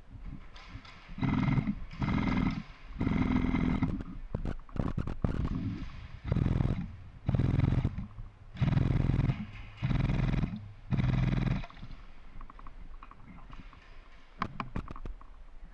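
Airsoft M249 electric gun firing short full-auto bursts, about eight of them, each under a second, with an even buzzing gearbox tone, coming in quick succession through the first three quarters of the stretch.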